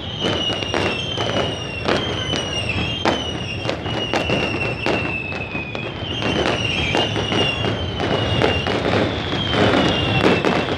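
Fireworks going off in quick succession: many sharp bangs and crackles, with a steady run of high whistles one after another, each about a second long and falling slightly in pitch.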